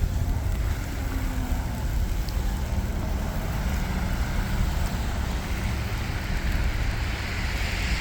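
Steady street traffic noise with wind rumbling on the microphone, and a hiss that grows louder near the end as a vehicle draws closer.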